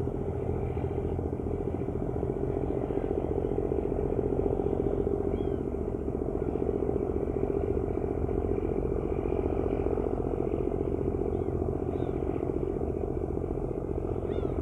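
Passenger ferry's engine running with a steady low drone. A few faint, short gull cries sound over it, about five seconds in and again near the end.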